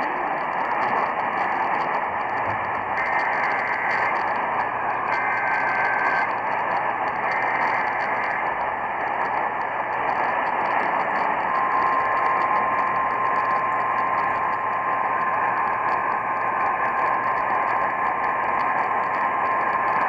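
Emergency Alert System signal received on a portable AM radio through heavy static: three short data bursts of the SAME header, about a second each, then a steady alert tone that begins a little past halfway and keeps on.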